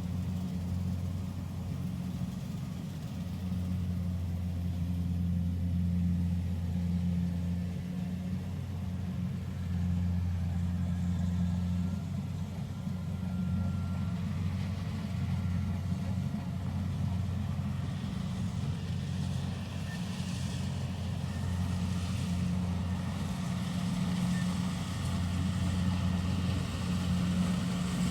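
Combine harvester's diesel engine running steadily, a low even drone.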